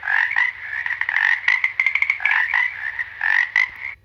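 Frogs croaking: a dense run of quick, overlapping calls that cuts off right at the end.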